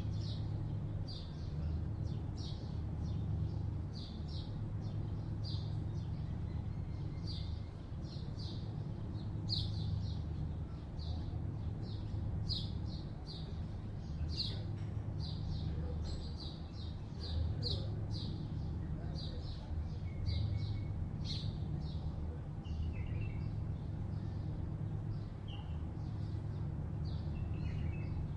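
Steady low hum of city traffic, with a small bird chirping over it in short, high chirps about once or twice a second. Now and then a second, lower bird call comes in.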